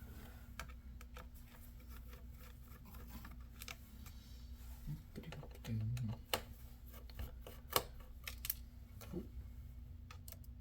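Scattered small clicks and taps of a screwdriver and small screws being worked on a laptop, over a low steady hum.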